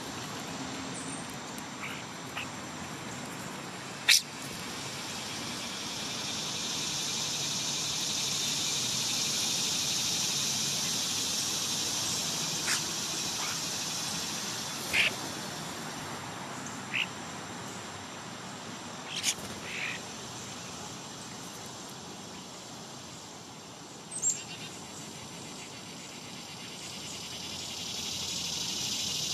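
Songbirds giving a handful of short, sharp chirps at scattered moments, over a steady high insect hum that swells and fades twice.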